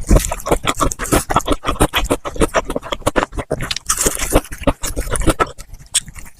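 Close-miked crunching and chewing of crispy fried chicken: rapid, irregular crackles of the fried coating breaking between the teeth.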